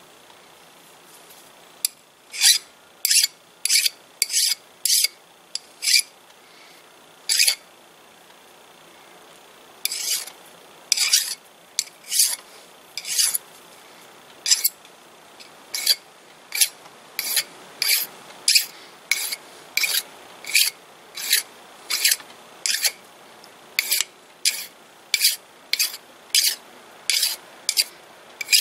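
Hand file rasping on a metal lathe part in short, repeated strokes, about one a second, with a pause of a couple of seconds early on. The file is taking down the upset metal raised around a set-screw spot so the part can go back in service.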